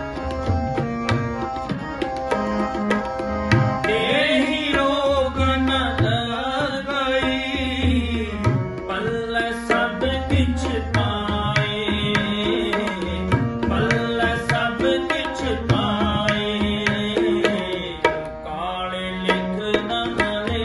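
Tabla and harmonium playing a shabad kirtan accompaniment: steady harmonium chords under a constant run of tabla strokes with recurring deep bass-drum notes. A man's voice sings wavering melodic phrases over them, first about four seconds in and again a few times later.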